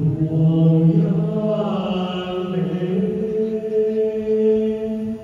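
Mixed choir of men's and women's voices singing long held notes in harmony, the men's low part under the women's higher parts.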